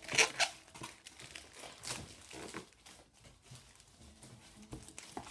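Plastic shipping bag being handled and opened: two loud sharp rustles right at the start, then intermittent softer crinkling.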